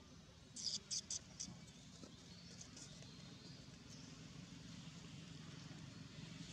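Four short, high-pitched animal chirps or squeaks in quick succession about a second in, followed by a few fainter ones, over a faint steady low background hum.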